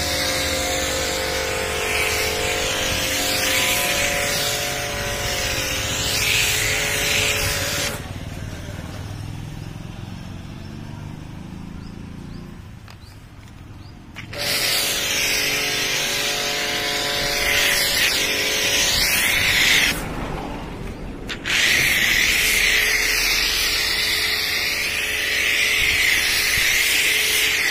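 Pressure washer with a foam lance running: a steady motor-and-pump hum under a loud hiss of spray hitting the car body. The spray stops about a third of the way in for several seconds as the hum falls away, then starts again, with one more short break later on.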